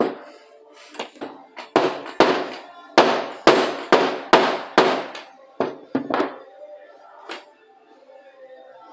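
Hammer striking metal about a dozen times, roughly two blows a second, tapping a brake pad clip into shape; the blows stop about six seconds in, with one lighter tap after. Faint background music underneath.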